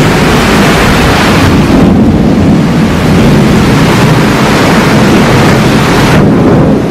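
Heavy rain with a loud, continuous rumble of thunder: a deep rolling roar under a dense hiss of rain, the hiss thinning out about six seconds in.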